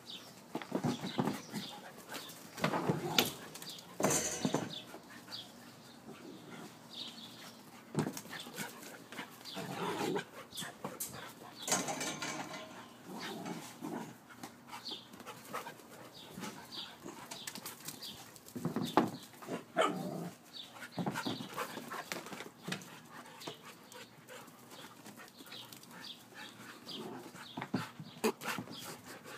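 A husky and a puppy at play, giving short dog vocalizations in irregular spells, mixed with scuffling knocks.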